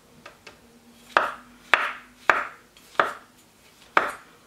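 Chef's knife slicing button mushrooms on a wooden cutting board: five sharp cuts at uneven intervals, each trailing a short crunch, after two faint taps.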